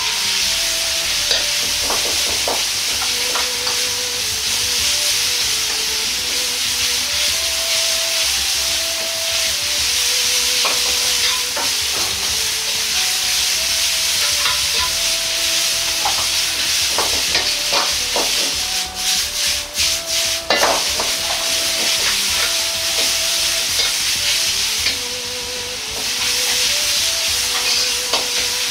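Carrot strips sizzling in hot oil and chilli bean paste in a wok over high heat, stirred and tossed with a metal ladle that scrapes and knocks against the pan. A quick run of sharp ladle knocks comes about two-thirds of the way through.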